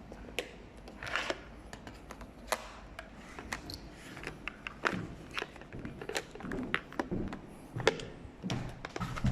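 Irregular knocks, taps and clicks of footsteps on a hard floor and of handheld gear being jostled.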